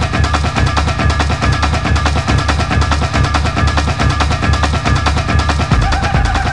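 Hard techno in a DJ mix: a fast, steady kick drum and dense percussion under repeating high synth tones. Near the end the bass shifts and a new synth line comes in.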